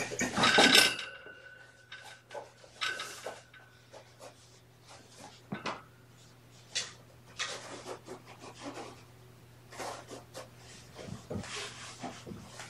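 Irregular rubbing and scratching on fabric and fur as a cat is petted on a fabric hammock bed, with a louder burst of rustling in the first second.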